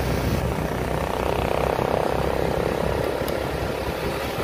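Motorbike riding noise heard on a handheld phone: steady wind rumble on the microphone mixed with the motorbike running.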